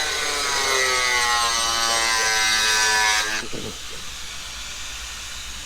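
A motor's whine slowly rising in pitch, then cutting off suddenly about three and a half seconds in.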